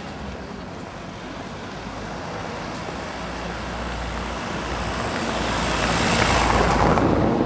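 A vehicle passing close by: its noise builds for several seconds, peaks near the end, then drops away quickly as the sound slides lower in pitch.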